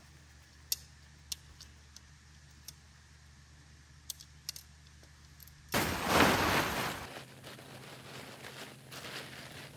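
Sharp clicks of metal tent-pole sections knocking together as the poles are folded up, several spread over the first five seconds. Then a loud rush of tent fabric being shaken and pulled for about a second and a half, with softer rustling after.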